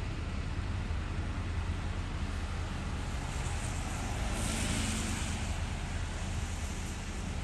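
Storm wind buffeting the microphone in a snowstorm: a steady low rumble, with a louder rush of hiss that swells and fades about halfway through.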